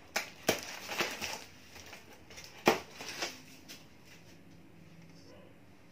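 A package in brown paper being opened with scissors: a run of sharp crackles and snips, the loudest about two and a half seconds in, then quieter handling.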